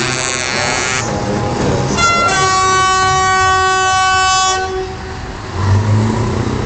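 Truck air horns blowing. A loud multi-tone blast ends about a second in. After a short note at about two seconds, a multi-trumpet chord horn holds steady for about two seconds and cuts off. A deep truck-engine rumble follows near the end.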